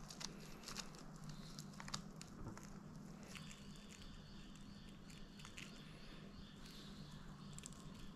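Faint kitchen handling sounds of hands pressing sushi rice onto nori on a bamboo rolling mat and laying crumbed flathead strips along it: light scattered clicks and rustles, the sharpest in the first two seconds, over a low steady hum.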